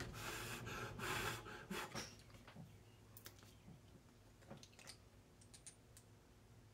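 Quiet handling sounds at a painting table: a soft breathy rush over the first two seconds, then faint scattered clicks and taps as a small ink bottle and a brush are handled.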